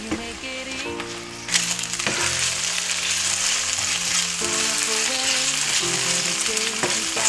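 Chicken pieces sizzling as they fry in oil in a nonstick pan, stirred with a spatula; the sizzle grows louder about a second and a half in. Background music plays throughout.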